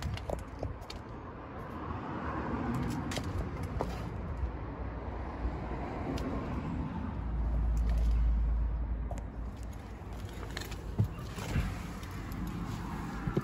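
Handling noise from a handheld camera: rough rustling, a low rumble that swells about halfway through, and a few sharp clicks, the loudest near the end.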